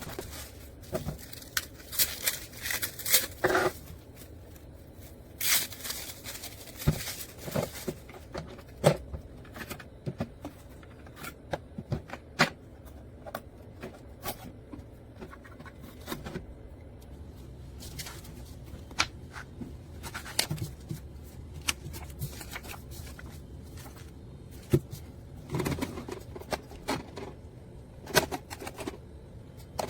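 Irregular clicks, taps and light scrapes of small objects being handled, coming in uneven clusters over a low steady background hum.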